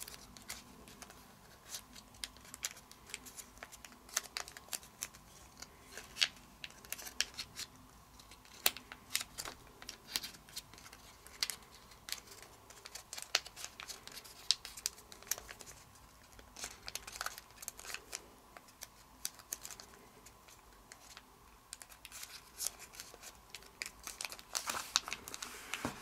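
Origami paper crinkling and crackling in the fingers as its flaps are pushed in and reverse-folded, with many small irregular clicks throughout.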